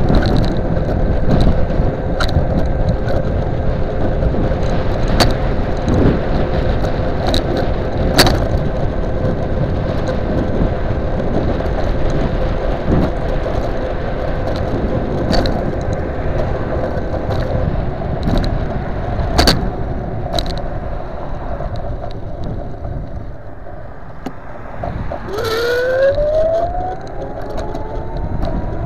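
Riding noise from a custom dual-motor 48 V Xiaomi M365 electric scooter: a steady rush of wind and road rumble with scattered rattles and knocks over bumps. A steady motor whine runs through the first half. After a quieter stretch, a whine rises in pitch near the end as the scooter picks up speed.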